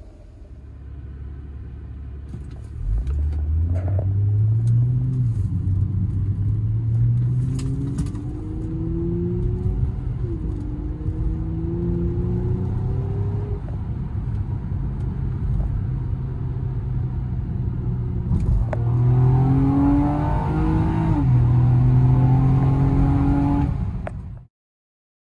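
Borla axle-back exhaust on a 2017 Honda Accord V6: a low rumble at idle, then the engine pulls hard, its note climbing and dropping back at each upshift. A second full-throttle pull near the end cuts off suddenly.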